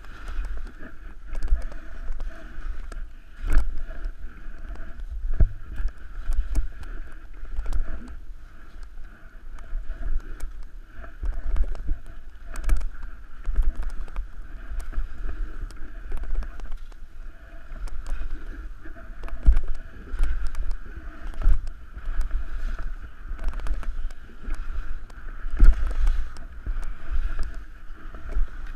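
Skis scraping and chattering over chopped-up, tracked snow on a downhill run, with wind rumbling on a helmet-mounted microphone. Irregular thumps come as the skis ride over bumps.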